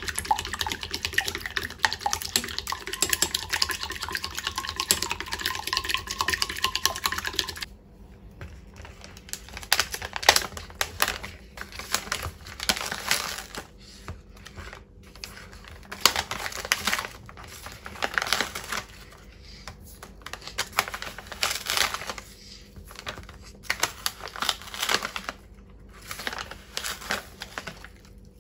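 Egg being beaten in a ceramic bowl with a spatula: quick, dense clicking of the utensil against the bowl for about eight seconds, then it stops suddenly. After that, scattered clicks and taps as granulated sweetener is scooped from a plastic pouch with a measuring spoon and tipped into the bowl.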